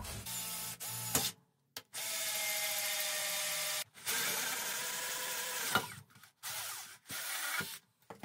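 Electric drill driving a 67 mm hole saw through thick acrylic (plexiglass) sheet, running in several steady runs of one to two seconds with short stops between, the last runs shorter as the cut goes through.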